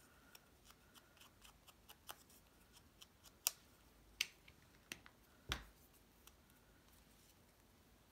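Light tapping and clicking of a small ink pad being dabbed against a cardstock piece, then a few sharper knocks about halfway through as the ink pad is set down on the cutting mat and a glue bottle is picked up. Faint room tone for the last couple of seconds.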